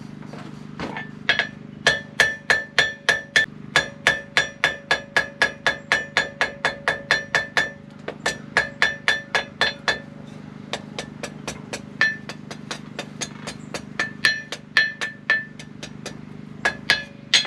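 Hand hammer striking a hot steel bar on a Hay Budden anvil, about three blows a second, each with a bright ringing anvil tone, drawing out and rounding the bar's tapered tip. The blows pause briefly about eight seconds in, turn to lighter taps for a few seconds, then grow heavier again. A steady low hum runs underneath.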